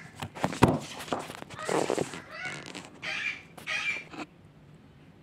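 Sharp plastic clicks and knocks from a Brother colour laser toner cartridge being handled and its drive gear turned clockwise by hand, the loudest just under a second in. A few short higher-pitched sounds follow, up to about four seconds in.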